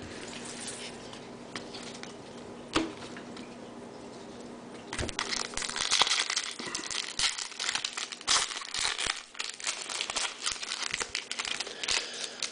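Foil trading-card pack wrapper crinkling and tearing as it is worked open by hand, a dense run of crackling starting about five seconds in. Before that there is only light handling with a single click.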